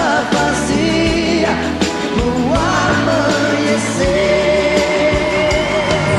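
Pop song with a sung vocal line over a steady beat and bass; the singer holds long notes with gliding pitch.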